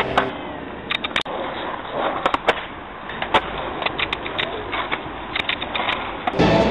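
Skateboard wheels rolling over rough asphalt, with irregular sharp clicks and knocks from the board.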